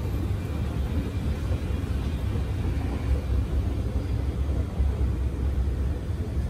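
Escalator running, a steady low rumble.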